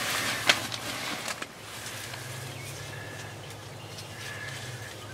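Rustling and a few sharp clicks for the first second or so, then a steady low hum with a few short, faint bird calls.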